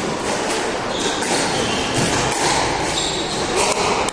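Squash rally: sharp knocks of the ball off rackets and the court walls at uneven intervals, with short squeaks of shoes on the wooden court floor, over steady hall noise.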